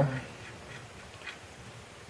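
The last syllable of a spoken word dies away, leaving a faint, even background hiss with one small click about a second and a quarter in.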